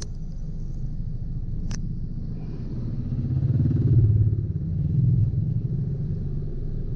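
Low rumble of a vehicle travelling on the road, swelling louder about three to five seconds in, with one sharp click a little under two seconds in.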